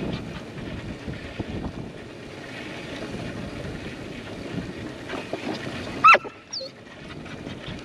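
Wind on the microphone and a bicycle towing a dog trailer rolling over pavement, a steady rumble with small rattles. About six seconds in, a dog gives one short, loud yelp.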